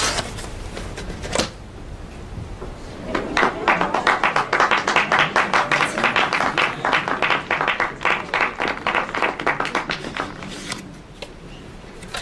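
A crowd applauding, starting about three seconds in and fading out near the end. Before it, two short knocks.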